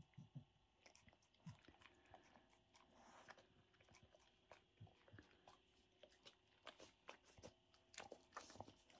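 Staffordshire bull terrier chewing and crunching small bits of food picked up off the carpet: faint, irregular crunching clicks.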